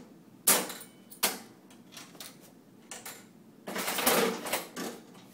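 Mills War Eagle mechanical slot machine: two sharp clicks in the first second and a half, then the handle is pulled about four seconds in, setting off a loud clattering run of the mechanism that ends in a few clicks.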